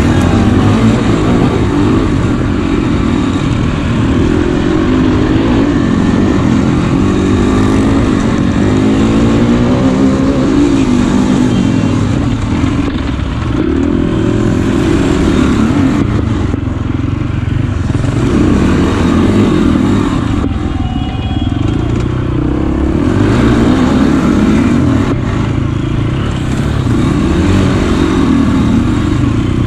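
KTM EXC enduro motorcycle engine revving up and down under hard riding on a dirt track, heard close from the bike, with a clear rising run of revs about nine seconds in.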